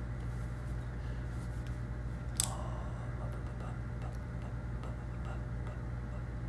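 Steady low room hum with faint scattered ticks, and one sharp click about two and a half seconds in.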